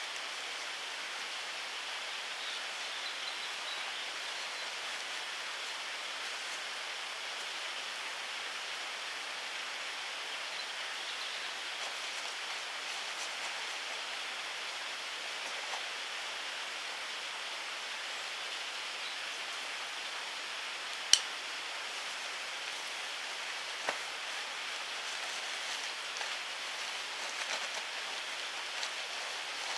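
Woodland ambience: a steady, even hiss with a few faint high chirps. A single sharp click comes about two-thirds of the way through, and a softer one follows a few seconds later.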